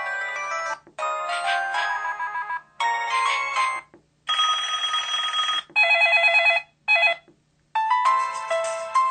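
LG-KF1000 mobile phone playing a string of short ringtone and alert-sound samples one after another, each cut off after a second or so. Electronic melodies come first, then a buzzing tone and a fast warbling trill, then another melody starting near the end.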